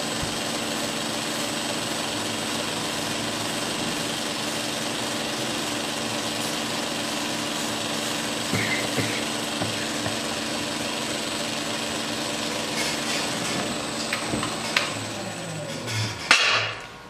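Belt grinder running steadily, a motor hum under the hiss of the abrasive belt, while a straight razor blade is finish-ground edge-down against the belt over the contact wheel. Near the end the motor is switched off and its pitch falls as it spins down, with a brief loud noise just before it stops.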